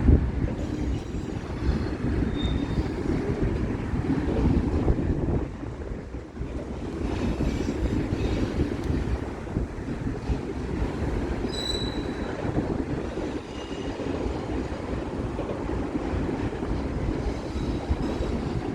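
Freight cars, auto racks and flat cars, rolling past on the rails with a steady rumble of wheels on track. A few brief high wheel squeals come about two seconds in and again near the middle.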